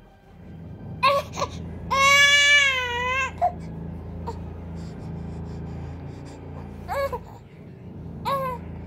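Infant crying in short wails during an oil massage of its face: a couple of brief cries about a second in, one long wavering cry around two to three seconds, then two more short cries near the end. A steady low hum runs underneath.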